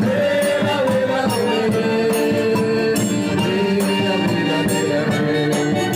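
Instrumental break of a band's song, without singing: a melody instrument playing over steady shaker and tambourine-like percussion that keeps an even beat.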